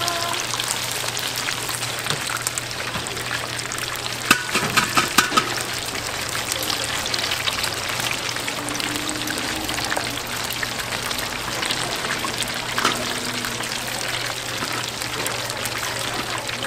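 Food frying with a steady sizzle, and about five sharp clacks in quick succession around four to five seconds in.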